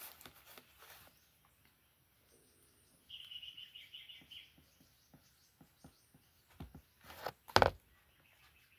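A small bird chirping a quick run of about eight high notes, about three seconds in. Near the end, two short loud bumps, the second the louder.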